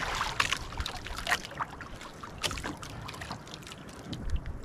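Choppy water lapping and slapping irregularly against the hull of a small outrigger boat, with wind on the microphone.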